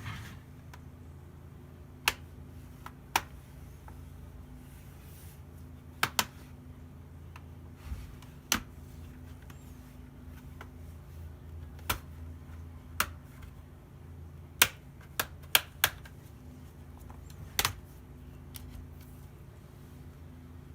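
About a dozen sharp clicks and taps at irregular intervals, from tools and plastic panel parts handled while a laptop is being opened, over a low steady hum.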